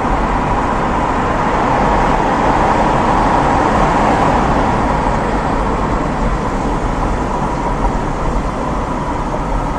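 Steady road and engine noise heard inside the cabin of a moving car as it drives through an underpass.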